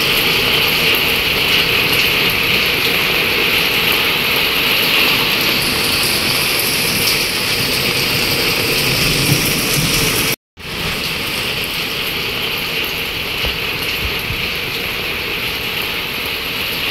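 Heavy rain pouring steadily, a continuous hiss of splashing drops. About ten seconds in the sound breaks off for a split second, then carries on a little quieter.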